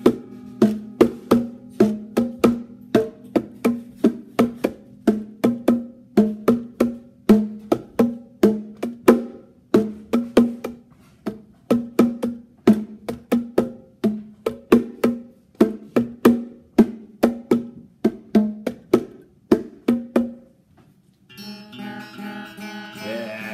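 Electric guitar played percussively: sharp, short struck notes about twice a second, each ringing briefly at the same low pitch. They stop about 20 seconds in, and a sustained strummed chord rings near the end.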